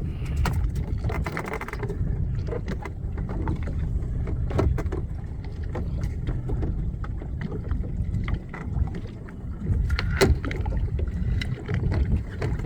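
Small fishing boat at sea: a steady low rumble of wind and boat noise, with scattered knocks and clicks from fish traps being handled on deck, the loudest knock about ten seconds in.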